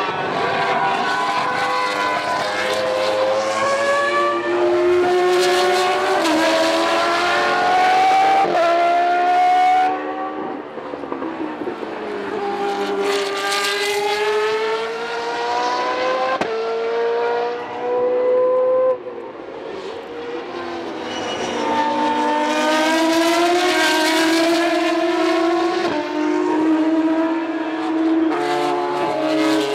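Boss GP open-wheel racing cars accelerating past one after another. Each high-revving engine climbs in pitch and drops back at every upshift.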